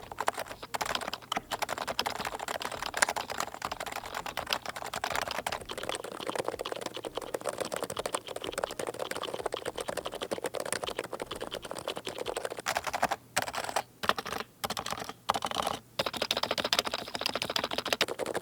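Fast typing on a bone-stock, silenced Leopold FC660C Topre keyboard: a dense run of keystroke clacks, broken by a few short pauses near the end. In this stock state the owner finds it doesn't really sound the greatest.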